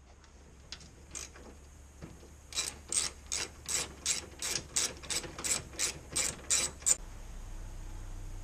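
Hand ratchet wrench clicking in a steady run of strokes, about three clicks a second for some four seconds, then stopping.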